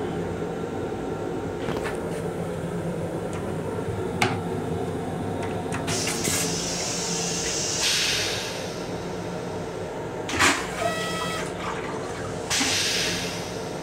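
M7 railcar toilet flushing: after a click, a long rushing hiss of the flush swells for a few seconds, a sharp clunk comes about ten seconds in, and a shorter rush of the rinse follows near the end, over the steady hum of the train car.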